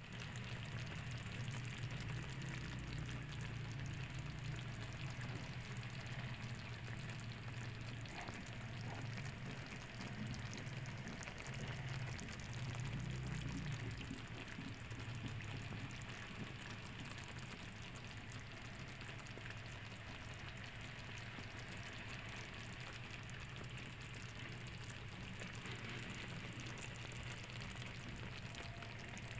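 A pan of chicken curry sizzling and crackling steadily on the stove, with a low steady hum underneath.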